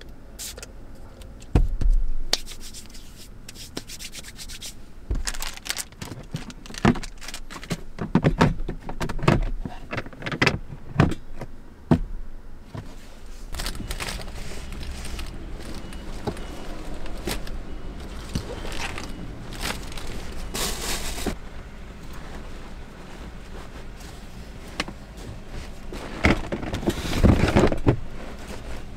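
Scraping, rubbing and rustling of things being handled and moved about, broken by a string of sharp knocks in the first half and a louder scuffle near the end.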